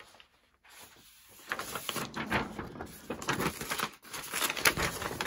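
Paper rustling and crinkling as loose paper memorabilia is handled, with many small taps and clicks, starting about a second and a half in.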